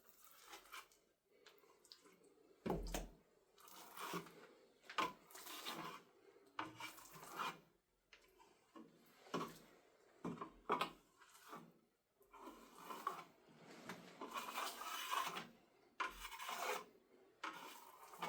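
Irregular rough scraping and rubbing strokes, each about half a second to a second long, with a few sharp knocks between them.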